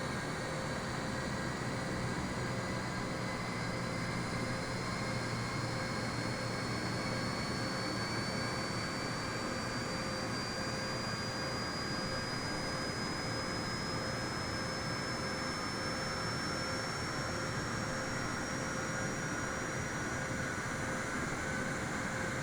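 Jet airliner's engines running for takeoff: a steady rushing noise with a high whine that rises slowly in pitch as the engines build thrust.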